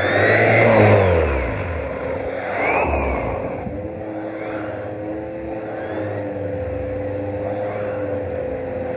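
Vacuum cleaner running with a steady motor hum, its pitch and level swelling and dipping briefly near the start and again about three seconds in.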